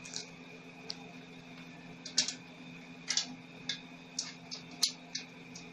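About a dozen light, irregular clicks and taps of welding cables and clamps being handled and connected, over the steady hum of the running welding machine and its cooling fan.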